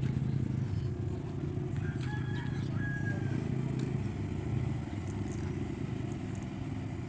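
ATV engine running steadily at low revs, a continuous low rumble, with a brief faint high-pitched call about two to three seconds in.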